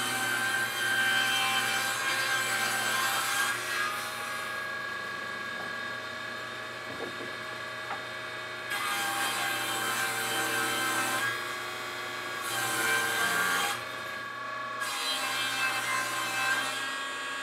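Table saw running steadily while used wooden deck boards are ripped lengthwise into balusters. About four cuts: the blade's noise grows loud and hissy as each board goes through, and between cuts only the motor hum of the freely spinning saw is left.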